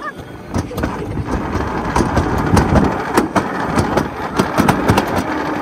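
Bobsled (alpine coaster) sled running down its track: a steady rushing rumble with rapid rattling clicks, picking up about two seconds in as the sled gathers speed.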